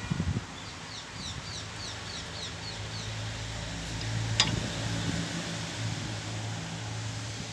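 A bird chirping a quick run of short falling notes, about four a second, over a low steady hum. A few knocks at the start and one sharp metallic click about four seconds in, from a steel bar levering the brake caliper piston back.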